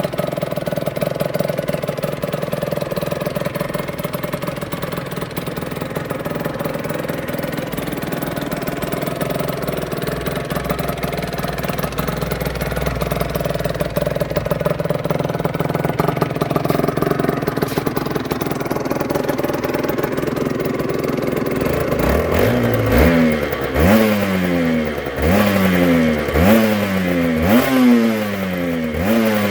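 Aprilia RS125's two-stroke 125 cc single-cylinder engine idling steadily, then, a little over twenty seconds in, revved in a run of about six quick throttle blips, each rising and falling in pitch.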